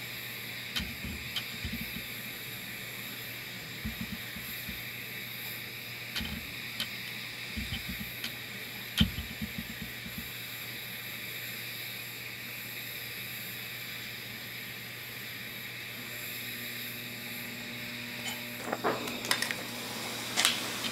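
Oxy-acetylene torch flame hissing steadily as it heats a steel gun mainspring for hardening, with a few light clicks. Near the end the red-hot spring is quenched in a can of oil, a short burst of sizzling.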